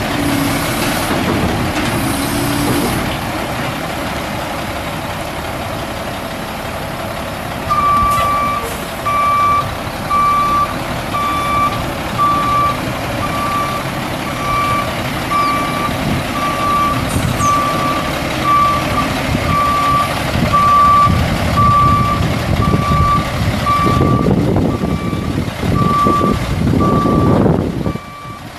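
Dump truck's Caterpillar C12 six-cylinder turbo diesel running as the truck manoeuvres, with its backup alarm starting about 8 seconds in and beeping steadily about once a second while it reverses.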